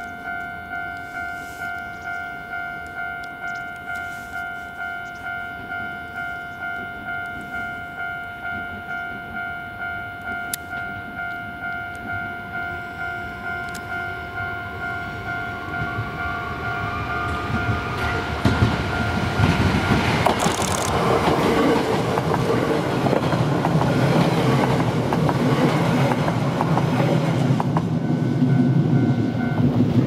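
A level-crossing warning bell rings a steady electronic ding about twice a second. From about sixteen seconds a Nose Electric Railway 1700 series electric train approaches and passes, its rumble and wheel clatter over the rail joints growing until they drown out the bell.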